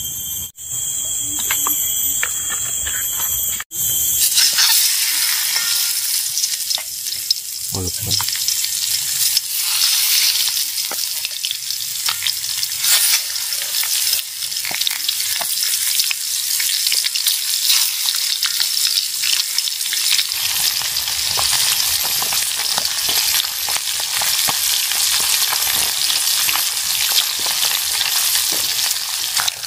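Turmeric-coated lais catfish deep-frying in hot oil in a wok over a wood fire: a steady crackling sizzle that starts about four seconds in. Before it, a different steady high-pitched drone.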